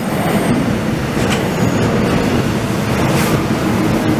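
Seoul subway electric commuter train rolling past close by, its wheels rumbling steadily on the track, with a few sharp clicks from the rail joints.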